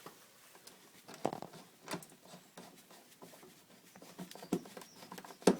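Scattered light clicks and knocks of hand work, a few sharper knocks among them: the unit's start-electrics box being opened up. No compressor running.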